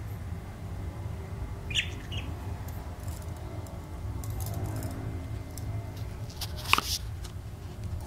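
Caged budgerigars giving a couple of short high chirps about two seconds in and a sharper, louder call near the end, over a steady low rumble.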